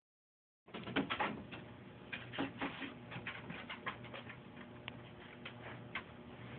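Basset hound digging and pawing at blankets on a bed: irregular scratching and rustling of fabric, busiest over the first couple of seconds and then sparser.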